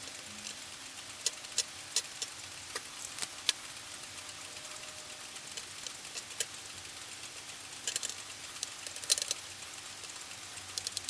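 Light, irregular clicks and taps of small parts and tools being handled on a workbench, over a steady low hiss. A quick cluster of clicks comes about 8 to 9 seconds in.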